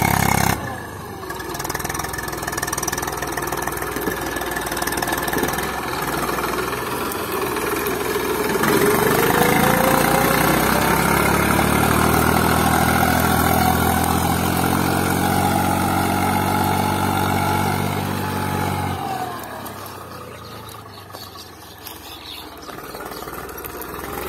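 Eicher 380 Super Plus tractor's three-cylinder diesel engine running under load while pulling a tine cultivator through dry soil. It grows louder and rises in pitch about eight to ten seconds in, holds steady, then drops away sharply about nineteen seconds in as the tractor moves off.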